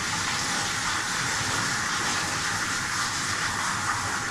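Steady hiss of water spraying from a self-service dog wash station's hose nozzle as a dog is washed.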